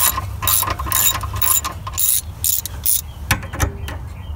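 Ratchet wrench clicking in quick repeated strokes, about three a second, as a bolt is turned loose; the clicking thins to a few single clicks near the end.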